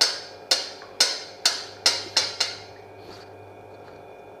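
A tea strainer knocked against the rim of a cup about seven times, roughly two sharp, ringing taps a second, shaking the last of the strained decoction out of it. The taps stop about two and a half seconds in, leaving only a faint steady hum.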